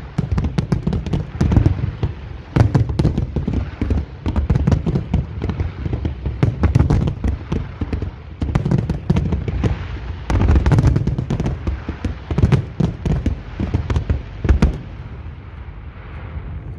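Fireworks display: rapid, overlapping bangs of aerial shells bursting, with deep booms underneath. The barrage thins out and goes quieter about fifteen seconds in.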